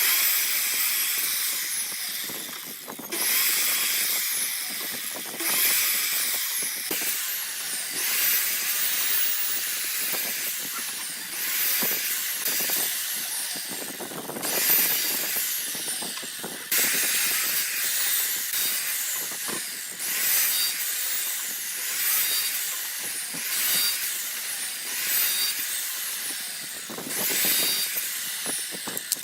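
Power-tool noise in repeated hissing bursts of a couple of seconds each, some with a high whine that falls in pitch.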